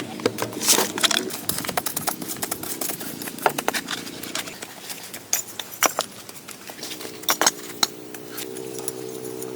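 Repeated sharp knocks and clatters of wood being handled during shelter building, with a steady pitched whine near the start and again from about seven seconds in.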